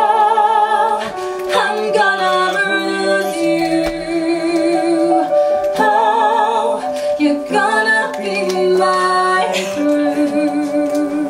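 A woman and a man singing a duet in long held notes with vibrato, over keyboard accompaniment.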